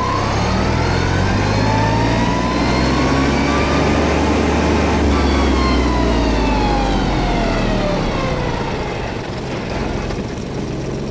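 Kubota B2401 compact tractor's three-cylinder diesel engine pulling away from a start in third gear high range, its pitch rising for the first few seconds and then falling away, the level dropping a little near the end.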